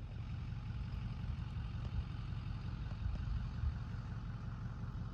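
An engine idling steadily, its sound mostly a low rumble.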